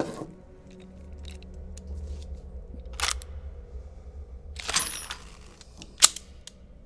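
Revolver being handled: a series of sharp metallic clicks, with a short rattling run about five seconds in and the loudest, crispest click about a second later, over a low music drone.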